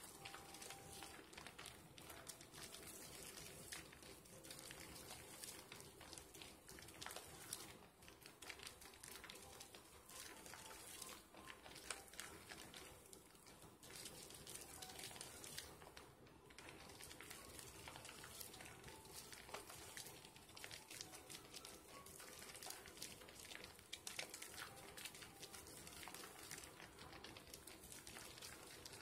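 Dove and Caress soap slivers being lathered by hand: faint, continuous squishing and fine crackling of thick wet foam as it is squeezed and worked.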